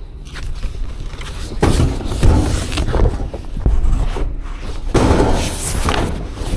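Handling noise as a large cardboard box holding a tool cabinet is lifted, carried and pushed into a cargo van: a series of knocks and thumps, the strongest about two seconds in, then a longer scraping stretch near the end.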